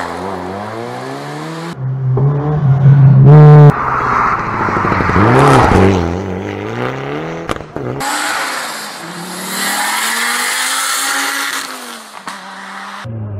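Rally car engines revving hard as the cars drive past in a string of short clips. The engine pitch climbs and drops through gear changes, and the sound changes abruptly at each of about four cuts.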